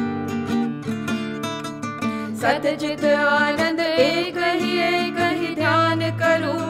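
Devotional song: held instrumental accompaniment, with women's voices coming in about two and a half seconds in and singing a wavering, ornamented melody.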